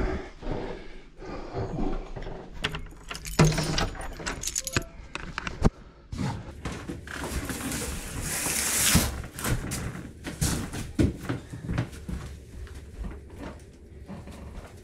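Keys jangling and an apartment door being unlocked and opened, with scattered clicks and knocks as a bicycle is wheeled through the doorway. A brief rustle comes about eight seconds in.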